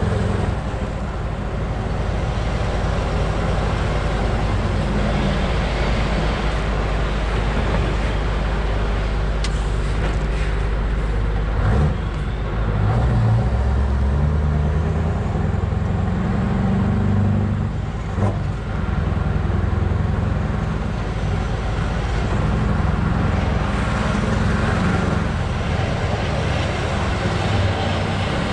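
Scania V8 diesel truck engine running while driving, heard from inside the cab over road noise, its note shifting a few times. A couple of brief knocks partway through.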